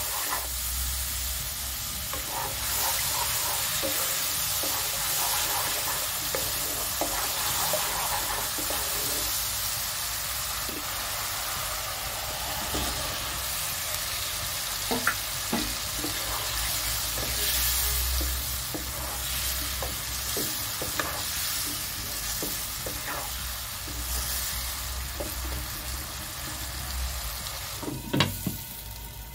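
Spice paste sizzling in hot oil in a non-stick wok, stirred and scraped with a wooden spatula, with scattered small knocks. Near the end a glass lid goes onto the pan with one sharp clack.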